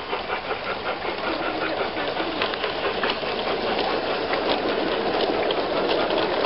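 G-scale (45 mm gauge) model train coaches rolling past close by: a steady rolling rumble of metal wheels on the track, with light rapid clicking over the rail joints from about two and a half seconds in.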